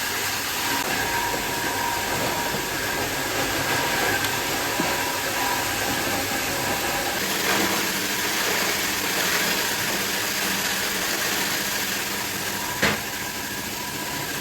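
Steady din of factory machinery running, with faint steady whine tones over a dense noise, and one sharp clack near the end.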